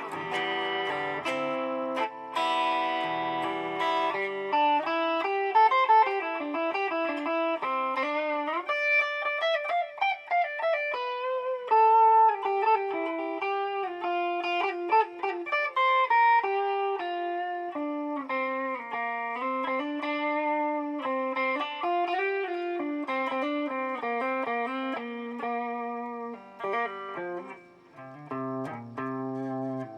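Electric guitar played through a BOSS DD-8 digital delay pedal in Warp mode, with strummed chords at first, then single-note lines whose notes overlap in echoes and glide in pitch for a few seconds about a third of the way in.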